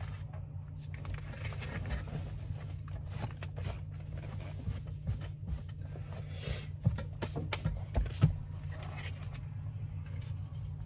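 Steady low engine hum with scattered clicks, taps and scrapes of ration packs and utensils being handled, and a few sharper knocks in the later half.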